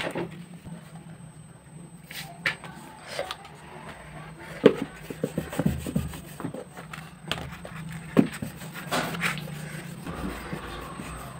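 Rubbing and scattered light knocks and taps from a handheld phone being moved and handled, over a steady low hum.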